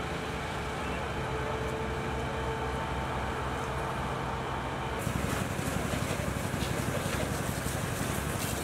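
Fire engine running with its pump engaged, a steady hum with a few held tones. About five seconds in, this gives way to the hiss of a fire hose spraying water, with the engine still droning underneath.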